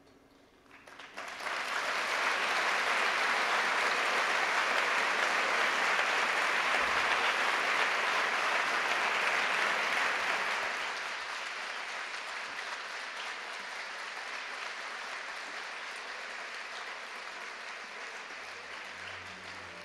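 A large audience applauding, swelling in about a second in, at its fullest for the next eight seconds or so, then easing off to lighter, steady clapping.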